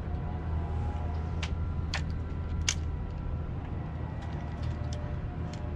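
Steady low mechanical hum, with a few sharp clicks and ticks over it.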